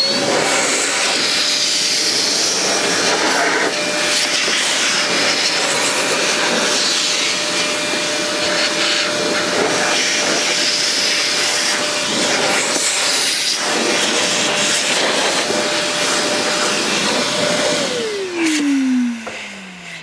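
Worx 20V cordless wet and dry vac running in blower mode, blowing debris out of a door threshold groove: a steady motor whine over loud rushing air. Near the end it is switched off and the whine falls away as the motor winds down.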